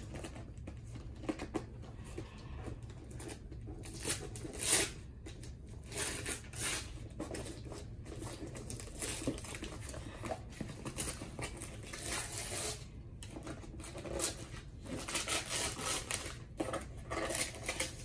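Wrapping paper being torn off a gift box, with tissue paper rustling, in a string of short rips and crinkles.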